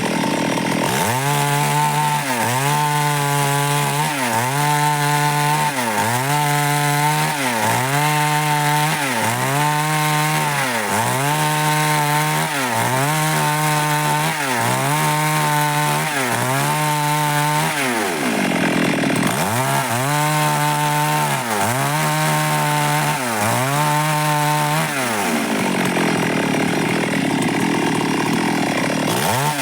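Stihl MS 382 two-stroke chainsaw cutting dry wood. The engine pitch drops and recovers about once every second and a half as the chain bites in again and again, with a brief pause just past halfway and a steadier run of cutting near the end.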